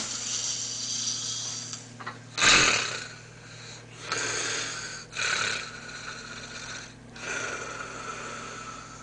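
A man snoring loudly in his sleep: a run of rough, uneven snoring breaths, the loudest a short snort about two and a half seconds in.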